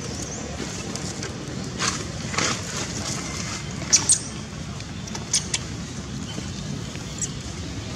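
Several short, high-pitched animal squeaks, the loudest pair about four seconds in, over a steady low outdoor rumble.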